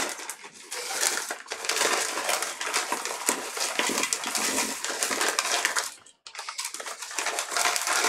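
A bag of croquettes crinkling and rustling as they are shaken out into a stainless steel pot, with the croquettes tumbling in. The crackling is continuous, stops briefly about six seconds in, then resumes.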